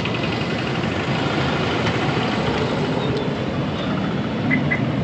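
Steady roadside traffic and engine noise, with two short high chirps a little past the middle.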